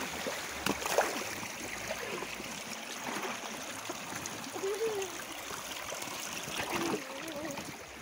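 Shallow river stream running and splashing around a person's legs as they wade through it, with a sharper splash about a second in.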